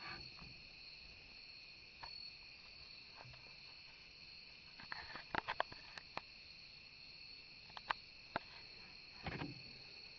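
Light clicks and taps from handling, with a quick cluster about five seconds in and a few more later, over a faint steady high-pitched drone.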